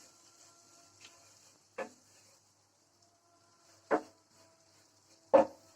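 Spoon stirring butter and maida into a roux in a pan, scraping and knocking against the pan three times in short strokes.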